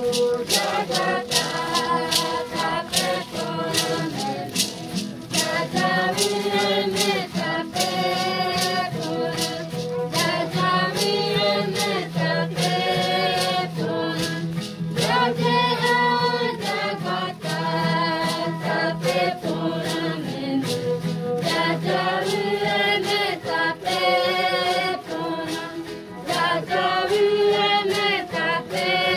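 A group of voices singing together in chorus, held notes changing every second or two, with hand rattles shaken to a steady beat throughout.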